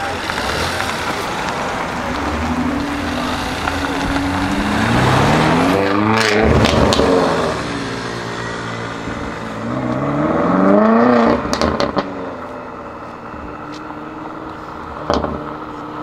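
Stage-2 tuned BMW M5 F90's twin-turbo V8 accelerating hard, its revs climbing steeply twice, with sharp exhaust crackles and pops as the throttle comes off.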